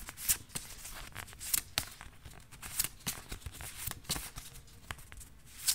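Postcards flipped through by hand, with a photocard in a plastic sleeve pulled out: a scattered run of light paper clicks and rustles, with a sharper click near the end.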